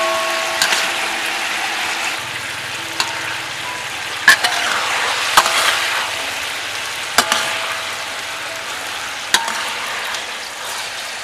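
Soy sauce sizzling and bubbling around a fried fish in a metal wok, with about half a dozen sharp metal clinks as a ladle and skimmer knock and scrape against the wok while the sauce is spooned over the fish.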